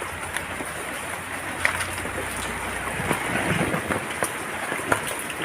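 Chicken pieces with turmeric cooking in a pan: a steady sizzle, dotted with small ticks and clicks.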